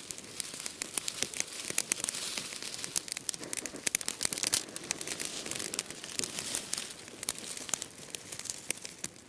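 Dry-grass tinder bundle catching fire, with dense, irregular crackling and popping as the grass burns. Near the end there is a crinkly rustle of dry grass as it is lifted by hand to feed it air.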